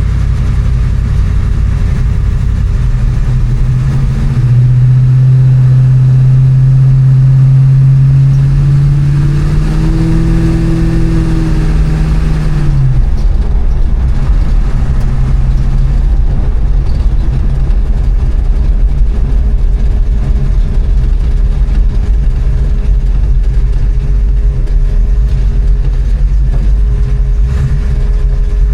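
1969 Chevrolet C10's 454 big-block V8 running through a custom stainless exhaust with Flowmaster Flow FX glasspack-style mufflers. About four seconds in its note rises to a louder, steady pull that climbs slightly in pitch. It drops away around thirteen seconds in, leaving a steady low rumble.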